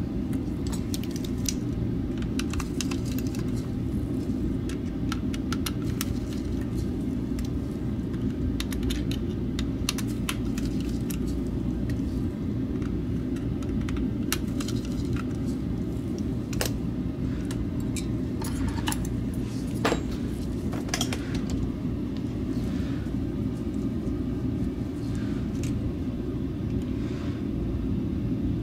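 Irregular small clicks and taps of a screwdriver and tweezers on the plastic shell and parts of an opened Logitech G Pro Wireless mouse, over a steady low background hum.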